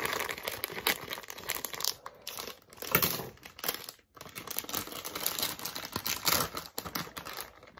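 Plastic snack bag crinkling and rustling as it is cut open with scissors and pulled apart, with a short pause about four seconds in.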